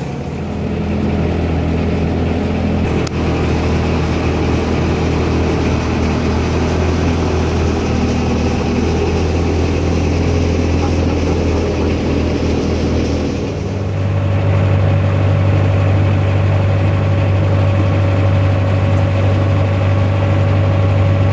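Fishing boat's engine running steadily with a low hum; about two-thirds of the way through it speeds up, louder and a little higher.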